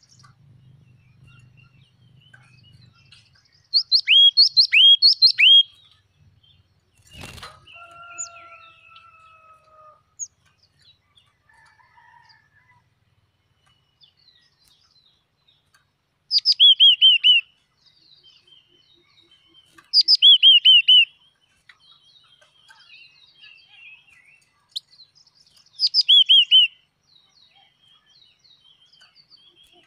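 A caged wild crested songbird calling in short bursts of quick, sharp notes that each slide down in pitch. There are four bursts several seconds apart, with faint chirps between them. About seven seconds in there is a single knock, followed by a brief ringing tone.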